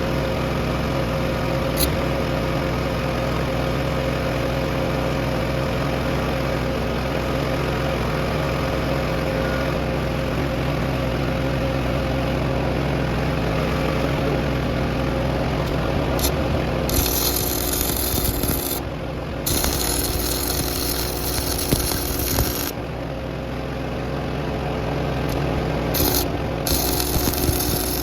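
Welding on a steel control arm bracket at the axle: a steady machine hum, joined from about two-thirds of the way in by bursts of crackling arc noise that start and stop several times.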